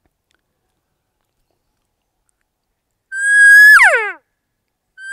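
Cow elk call blown on a latex diaphragm elk call, about three seconds in: a high note held briefly that then drops off steeply in pitch, the whole call lasting about a second. A second cow call begins near the end.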